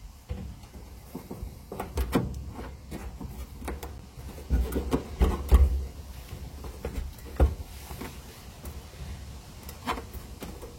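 Irregular knocks, clicks and low thuds, loudest in a cluster about halfway through.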